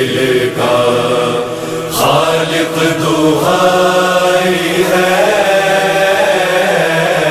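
Noha, a Shia mourning lament, chanted in long held notes that slide slowly in pitch.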